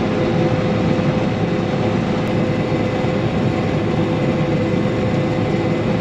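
John Deere combine harvester running steadily while threshing barley, with a constant whine over the engine and machinery noise. The machine is taking in the green straw without labouring.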